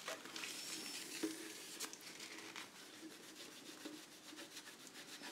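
Quick rubbing strokes of a wipe along the edge of a speaker panel's frame, cleaning conductive Licron coating off with alcohol; the strokes grow fainter after the first half, with one light knock about a second in.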